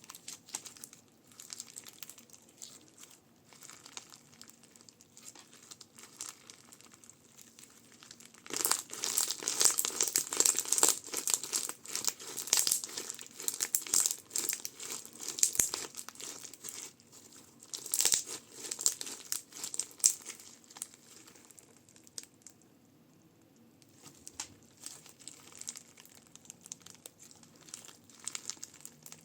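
Crunchy slime being squeezed and worked, a dense crackling and crinkling. It is soft at first, turns much louder for about ten seconds from roughly a third of the way in, then drops back to soft crackling.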